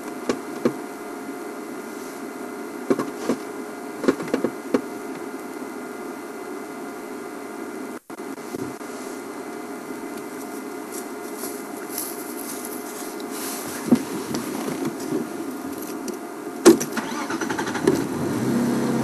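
Game-drive vehicle's engine idling steadily, with scattered sharp clicks and knocks over it.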